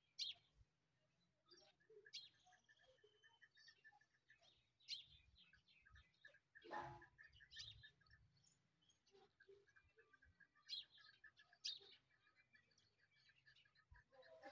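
Faint bird calls from a caged partridge: soft runs of rapid chattering clicks with short sharp chirps scattered through, and one stronger call about halfway through.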